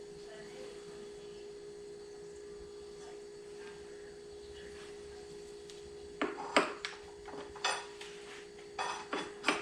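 Metal brake parts clinking as new rear brake pads are fitted into a motorcycle caliper: a handful of sharp, short clicks in the second half. A steady faint hum runs underneath.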